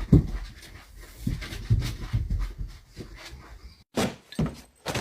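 A series of irregular soft thumps and knocks, with a sharper, louder knock about four seconds in.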